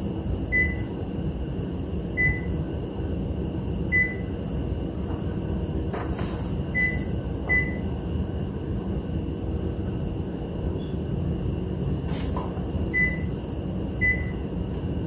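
Epson ET-15000 printer's control panel beeping as its touchscreen is tapped: seven short, high beeps at uneven intervals over a steady low hum, with a couple of soft clicks.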